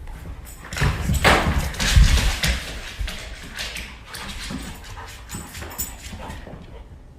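A dog with a run of irregular knocks and scuffling clicks, loudest about one to two seconds in and fading toward the end.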